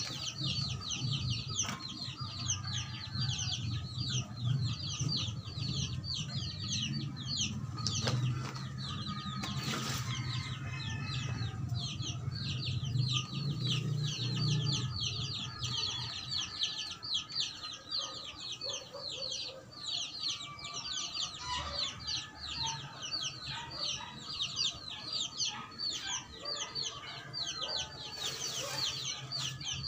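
Chickens cheeping and clucking without a break, in rapid high chirps several times a second. A low hum fades out about halfway through, and a steel spade scrapes into soil now and then.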